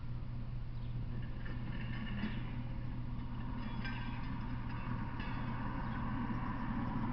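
A vehicle engine running steadily with a low hum, with brief faint high squeaks about two and four seconds in.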